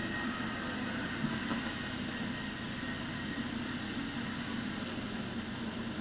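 Steady, even background noise with no distinct events.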